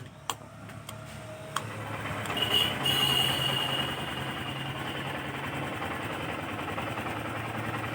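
Honda Livo BS6's single-cylinder motorcycle engine starting: a few clicks, then the engine catches about two to three seconds in and settles into a steady idle after fresh engine oil has been filled.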